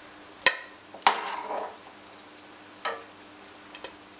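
Metal ladle clinking against a cooking pot as boiled chicken pieces are lifted out of the stock: four sharp clinks, the second trailing into a brief scrape.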